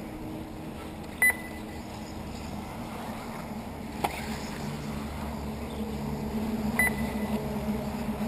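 Two short high electronic beeps, about a second in and near the end, from the race's lap-counting system, over a steady low hum of 1/10-scale 4WD radio-controlled buggies running on the track. A single sharp click about four seconds in.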